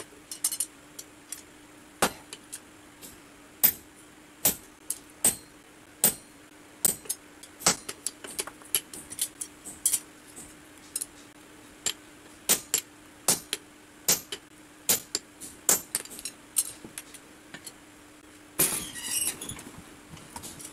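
Hammer blows ringing on a red-hot iron adze head on an anvil, sharp irregular strikes about one or two a second, over a steady low hum. A brief rushing noise comes near the end.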